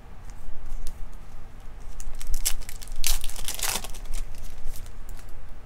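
Crinkling and rustling as a stack of trading cards is handled and sorted, with scattered small clicks and two louder bursts about two and a half and three to four seconds in.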